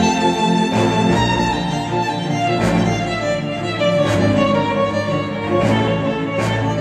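Acoustic pop music, violin and strings over a steady beat, played through KEF R3 bookshelf speakers driven by a Yamaha A-S301 integrated amplifier.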